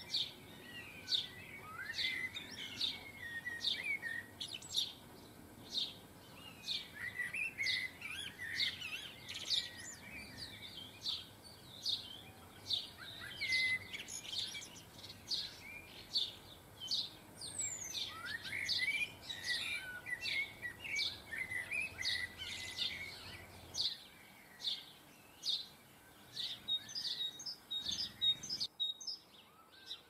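Small garden songbirds chirping and twittering: a quick, busy run of short, high chirps with twittering phrases mixed in, thinning out over the last few seconds.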